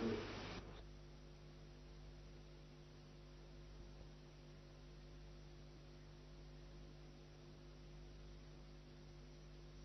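Faint steady electrical hum with an even hiss underneath, the mains hum and tape hiss of an old videotape recording; the end of a man's spoken question fades out in the first moment.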